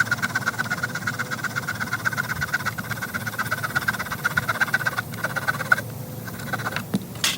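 Swiss Army knife's small saw blade sawing through a pine branch in quick, even back-and-forth strokes, stopping about six seconds in; after a few short strokes comes a sharp knock near the end.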